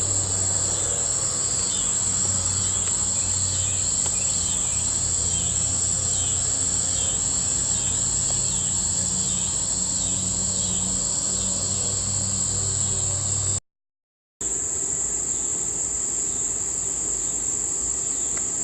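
Night insects, crickets, trilling steadily at a high pitch, with a rhythmic pulsing chirp about twice a second over the first half, above a low steady hum. All sound cuts out for under a second about two-thirds of the way through.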